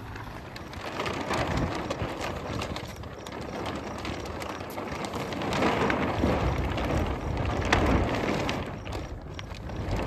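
Heavy plastic silage bag rustling and crackling as its end is rolled up and twisted by hand, louder in the second half.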